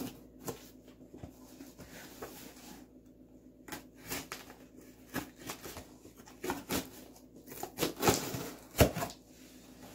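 Hands cutting and tearing open a shipping package: irregular small clicks, scrapes and rustles of cardboard and tape, with a sharper knock near the end.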